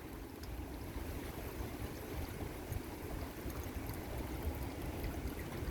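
Steady rain falling, with water running and pouring, and gusting wind rumbling on the microphone.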